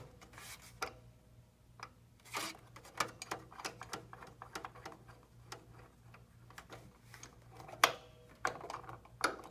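Scattered light clicks and taps of a stainless-steel antenna clamp being handled and seated onto the antenna's eyelet, with a few brief scraping sounds.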